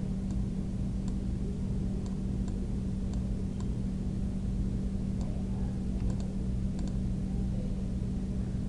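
Steady low hum of background noise, with faint, scattered clicks of a computer mouse.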